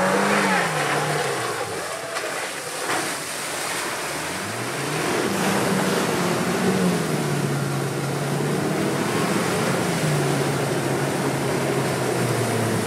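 Land Rover Defender engine revving as it wades through deep muddy water, with water sloshing and splashing around it. The revs rise near the start, ease off, then climb again about four and a half seconds in and hold steady.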